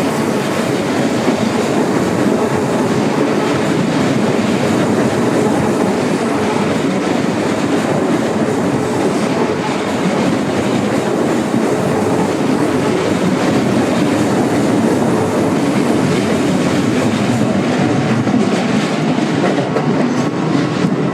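Keikyu Line electric train running past on the tracks, a loud, steady rumble of wheels on rail that goes on without a break.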